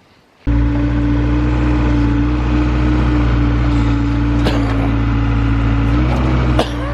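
Diesel engine of heavy digging equipment running steadily, cutting in abruptly about half a second in, with a couple of short clanks and a slight drop in level near the end.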